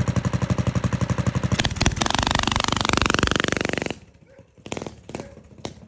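Minibike's small single-cylinder engine, running on its newly fitted carburetor, with a fast, even putt. It is revved up from about two seconds in and then cuts off suddenly near four seconds, followed by a few scattered clicks.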